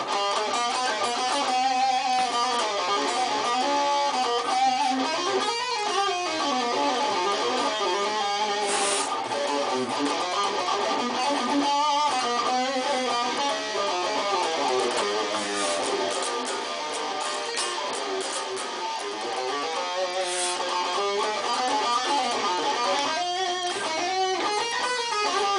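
Ibanez JEM electric guitar playing single-note lines that weave up and down, several notes a second: the diminished whole-tone (altered) mode of the melodic minor scale, played over a 7♯9 funk-style chord sound.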